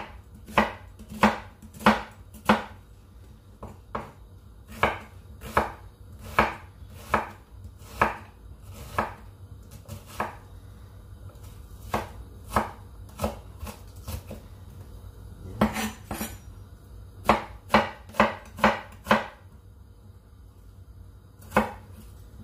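Chef's knife chopping a red onion on a wooden cutting board: separate knocks of the blade hitting the board, roughly one or two a second, with a quick run of five strokes about three-quarters of the way through. A steady low hum sits underneath.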